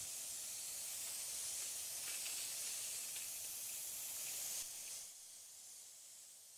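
A steady high-pitched hiss that falls away in two steps about five seconds in, leaving a fainter hiss.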